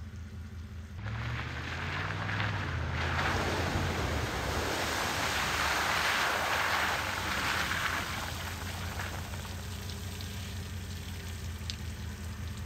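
Ford Raptor pickup driving up close: its engine comes in about a second in, rising slightly in pitch, then a long rushing hiss of tyres on the wet, slushy track builds and eases off toward the end.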